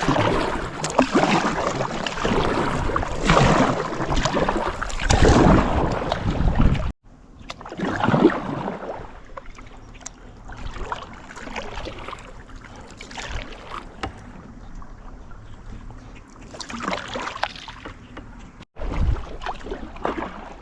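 Kayak paddle strokes dipping and splashing in the water, a surge about every second or two, with a heavy low rumble over the first seven seconds. The sound cuts off abruptly twice, about seven seconds in and near the end.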